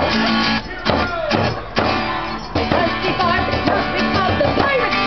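A live folk song: an acoustic guitar strummed along with a frame drum struck with a beater, and voices singing.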